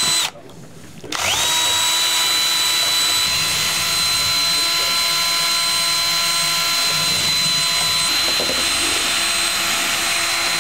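Cordless drill with a mixing attachment stirring a pan of thick white liquid. The motor stops just after the start and restarts about a second in, its whine rising to speed and then holding steady.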